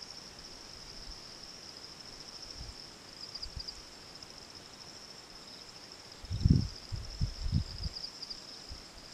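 A steady high-pitched insect chorus trills on without a break. About six seconds in, a few low rumbling bumps come in and are the loudest sound for a couple of seconds.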